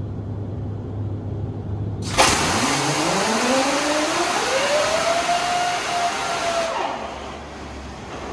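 Air starter cranking a 1960 Waukesha V-12 diesel generator engine: about two seconds in, a sudden loud hiss of compressed air with a whine that rises steeply in pitch and levels off. The air cuts off a few seconds later, leaving the engine running with a quieter, lower, steady hum.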